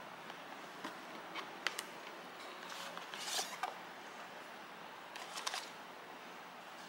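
Hands opening a rigid black cardboard Gentle Monster box: a few light clicks and taps as fingers grip the lid, a brief scrape of cardboard as the lid is lifted about three seconds in, and a few more clicks at around five and a half seconds.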